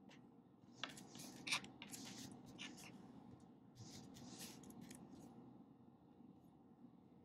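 Pen writing on paper in a series of short scratchy strokes, with a couple of light taps about a second in. The writing dies away after about five seconds, leaving faint room tone.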